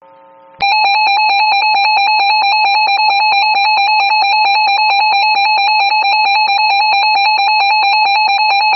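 Emergency alert attention tone for a tornado warning: a loud, evenly pulsing electronic alarm tone that switches on abruptly about half a second in.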